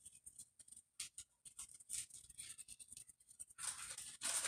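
Seasoning shaken from a shaker bottle over a bowl of cornbread dressing: faint, irregular little taps and rattles, with a louder rustle near the end.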